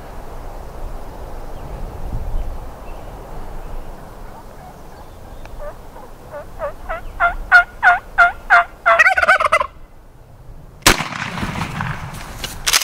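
Merriam's wild turkeys: a series of about a dozen yelps growing louder, then a quick gobble that cuts off abruptly. About eleven seconds in, a single shotgun blast, followed by rustling noise.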